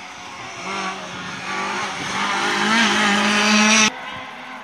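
Rally car engine revving hard as it accelerates through a tight bend, the pitch climbing and dropping with gear changes and growing louder, then cut off suddenly near the end.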